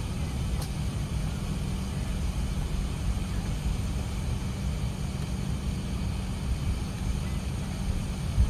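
Steady low rumble heard inside the cabin of an Airbus A380 taxiing: the idling jet engines, airflow and rolling gear blending into an even drone.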